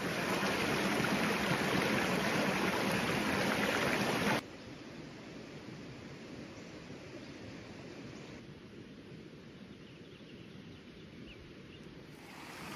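Creek water running, a steady rushing. It is loud for about the first four seconds, then cuts abruptly to a quieter flow.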